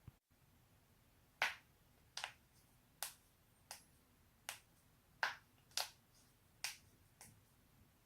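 A person's joints cracking: a series of about ten sharp, separate pops, one every half second to a second.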